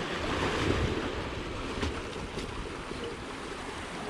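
Sea waves washing over rocks, with wind buffeting the microphone in a steady low rumble.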